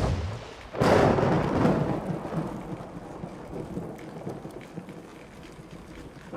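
Thunderstorm: a sudden thunderclap about a second in, rumbling away over several seconds, over a steady hiss of rain.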